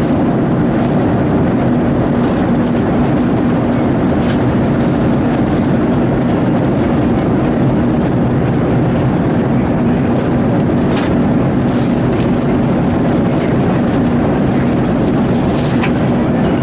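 Steady drone of an airliner cabin in flight, engine and airflow noise with a constant low hum. A few faint clicks sound over it.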